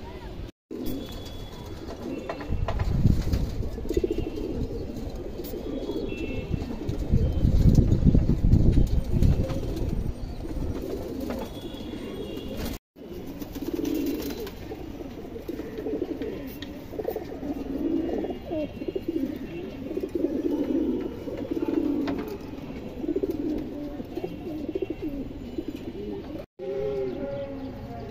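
Domestic pigeons cooing over and over. A low rumble runs under them and is loudest about a third of the way in. The sound cuts out briefly three times.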